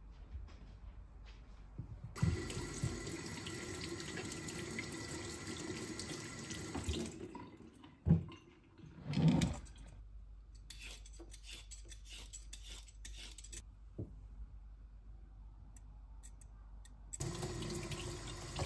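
Kitchen tap running into a stainless steel sink, then two knocks. Next comes a run of quick scraping strokes of a vegetable peeler on a carrot, and near the end the tap runs again as a peeled carrot is rinsed under it.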